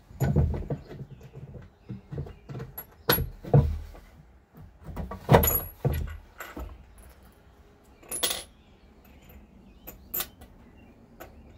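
Hands working a PVC pipe against a wooden board and fitting a bolt, washers and nut: a run of irregular knocks and clicks of plastic on wood, with small metallic clinks, loudest about three and five seconds in and sparser after about eight seconds.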